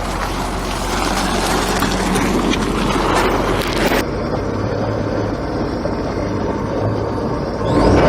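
Large engine running steadily with a low hum, under a rushing hiss that cuts off suddenly about four seconds in.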